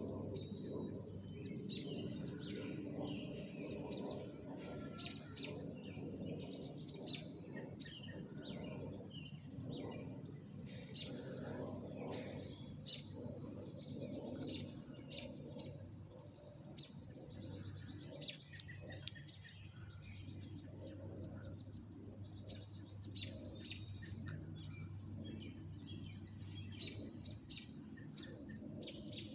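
Songbirds chirping and calling, many short chirps overlapping throughout, over a steady low hum in the background.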